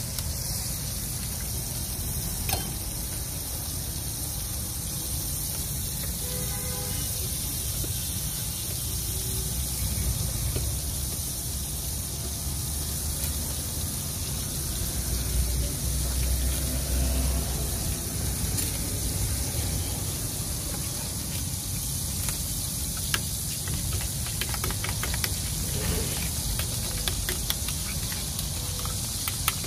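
Butter sizzling on a large flat iron griddle over a gas burner, a steady hiss. Near the end come a run of light clicks, a spoon against a small steel bowl of egg mix.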